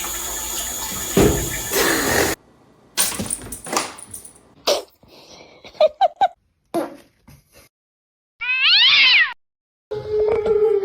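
A loud rushing noise for about two seconds, then scattered knocks and short sounds. About eight and a half seconds in comes a cat's meow: one call, about a second long, falling in pitch.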